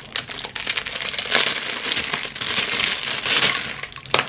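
Clear plastic packaging bag crinkling and rustling as it is torn open and pulled off a rifle sight, a dense run of small crackles that is loudest in the middle.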